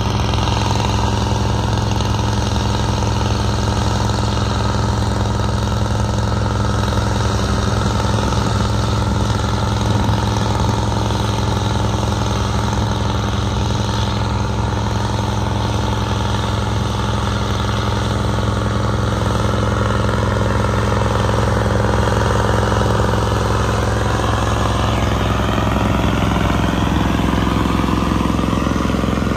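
Caterpillar 3208 V8 diesel of a White 4-150 tractor running steadily under load while pulling a plow. It grows a little louder, and the pitch drops slightly, as the tractor passes close by near the end.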